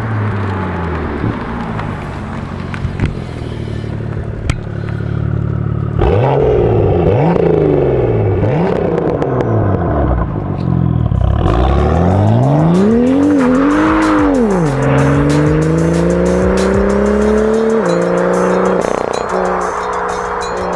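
BMW M2's N55 turbocharged straight-six through a 3.5-inch straight-pipe exhaust with its valves open, revving hard under load. The revs climb and drop several times as it pulls through the gears, getting louder about a quarter of the way in, peaking and falling again past the middle, then climbing more slowly toward the end.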